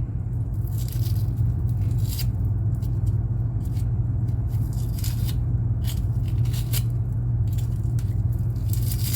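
Knife slicing and scraping the skin off a fish in short, irregular strokes, over a steady low hum.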